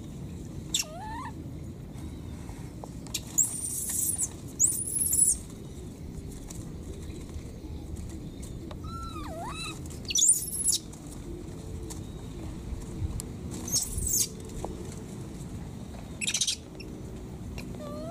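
Baby macaque calling: two short coos that bend up and down in pitch, and several brief, very shrill squeals.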